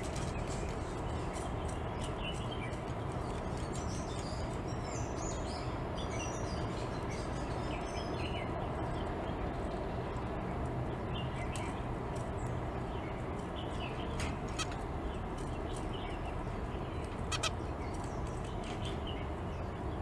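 Zebra finches giving short, scattered high chirps and nasal calls, busiest in the first half, with a louder sharp call about three quarters of the way through, over a steady low hum.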